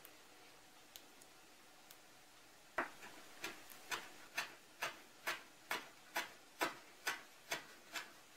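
Kitchen knife chopping fresh dill on a wooden cutting board: after a few faint clicks while the dill is laid out, steady knocks of the blade on the board start about three seconds in, about two a second.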